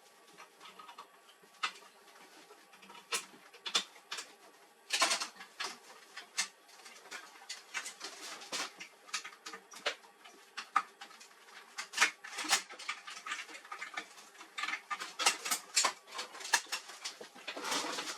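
Irregular clicks, taps and light scraping of plastic and metal parts being handled and worked with tools, a few sharper knocks among them.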